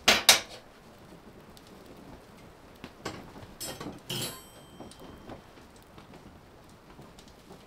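Steel woodstove door clanking shut and latching, loud and sharp. About three seconds later come a few lighter metal clacks at the stove, the last one ringing briefly.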